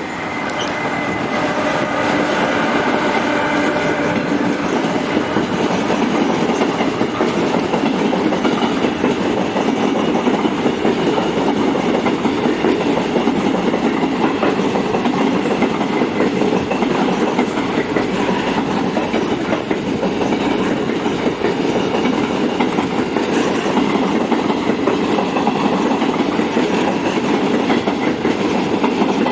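Passenger train rolling through the station, its wheels clattering over the rail joints. It grows louder over the first few seconds and then runs steadily, with a faint high whine at the start that fades away.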